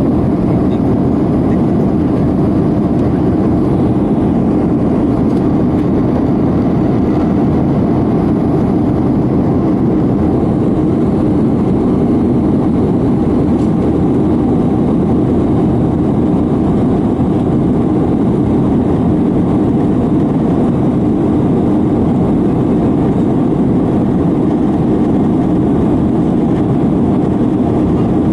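Steady roar of a jet airliner's engines and rushing air heard inside the passenger cabin during the climb after takeoff, deep and even, with no change in pitch or level.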